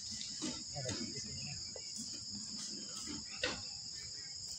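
Steady high-pitched chorus of insects, unbroken throughout. There are faint voices early on and a single sharp knock about three and a half seconds in.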